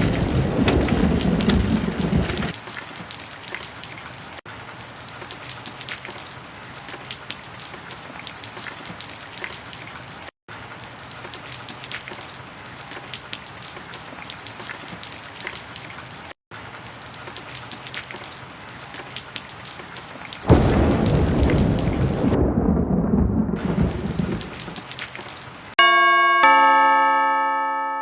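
Heavy rain falling steadily, with a roll of thunder at the start and another about two-thirds of the way through. Near the end the rain stops and a bell-like chime of several ringing tones sounds and fades.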